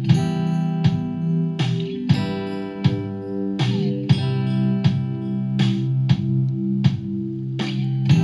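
Background music led by guitar, with a steady beat of sharp percussive hits.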